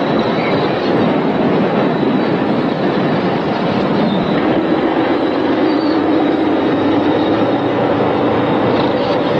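A StuG III assault gun being dragged on its steel tracks and running gear behind a heavy wheeled tractor whose diesel engine is under load. It makes a steady, dense metallic noise with a thin high whine running through it.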